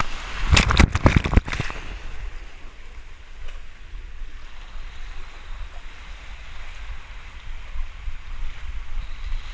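Water rushing down a water slide with a rider aboard, a quick flurry of splashes hitting the camera in the first two seconds, then steady rushing water and wind buffeting the microphone.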